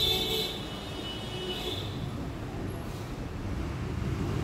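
A sharp metallic ring as the steel blade of a 5 m measuring tape is handled, fading out over about two seconds, over a steady low rumble.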